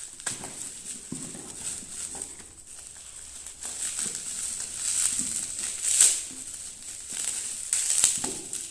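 Plastic bubble wrap crinkling and rustling as a bottle is unwrapped by hand, louder about two-thirds of the way through and again near the end.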